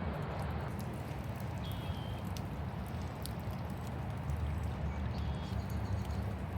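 Steady rain falling, over a low steady rumble, with a few short high chirps.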